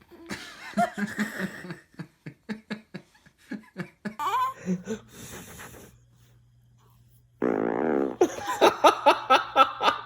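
Baby fart: one buzzing blast of just under a second, about seven and a half seconds in, set among bursts of people laughing before and after it.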